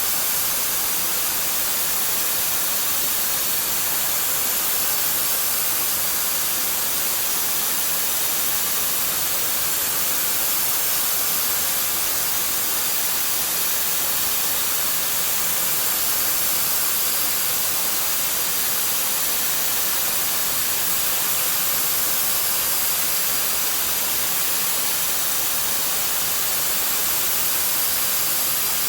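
Steady hiss from a CNC machine cutting a Ford 6.4L diesel piston, even throughout with no distinct tones or rhythm.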